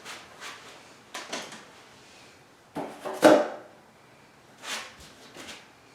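Wooden boards and hardware handled by hand: a scattering of separate knocks and clicks, the loudest about three seconds in.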